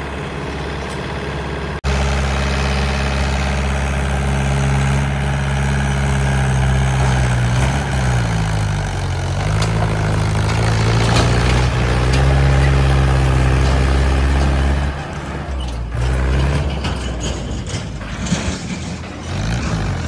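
Mahindra 475 DI tractor's diesel engine running loud and steady under load with a trolley full of red mud, its pitch dipping and then recovering about halfway through.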